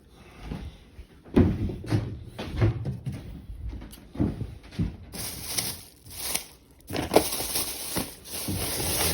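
Plastic bag rustling and crinkling, with irregular knocks and thumps, as tightly tied bag knots are worked open.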